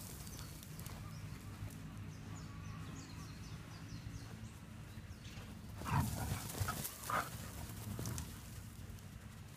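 Running footsteps on soft dirt, with the handheld phone jostling and a small dog's paws scampering close by. A few faint high bird chirps come about two to three seconds in, and louder rustling bursts around six and seven seconds.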